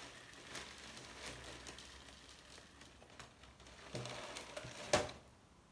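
Faint rustling and handling noises, with a fleece sleeve brushing close past the phone's microphone about four seconds in and a sharp knock about a second later.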